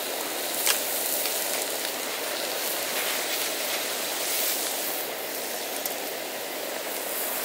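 Pork neck sizzling on a grill pan: a steady hiss with a few sharp pops.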